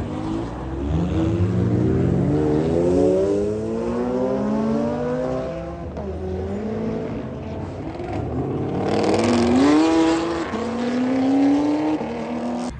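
High-performance car engine accelerating hard, its pitch climbing through two long pulls: the first runs to about five and a half seconds, then there is a drop, and the second climbs from about eight seconds until it cuts off just before the end.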